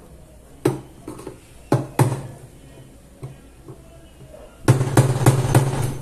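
Hammer striking a screwdriver used as a chisel to break apart a plastic washing-machine tub hub seized onto the transmission shaft: a few separate sharp knocks, then a quick run of blows near the end.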